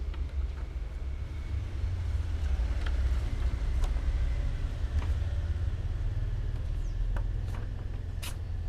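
A steady low rumble with a few light clicks and taps: a kitten batting a ballpoint pen against a wooden desktop, with the sharpest click near the end.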